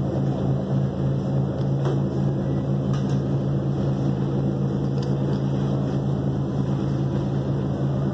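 A boat's engine running steadily while under way, an even low drone.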